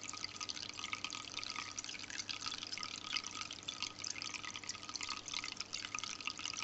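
Faint trickling water of a fountain, a fine steady patter of small drips and splashes, played as a sound effect.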